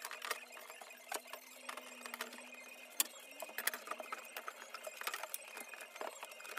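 Scattered light clicks and taps from a thin hardboard back panel being handled and set onto a chipboard cabinet carcass, over a faint steady hum.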